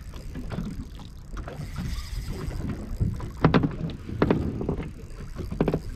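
Wind rumbling on the microphone with boat and water noise, and three short louder knocks in the second half.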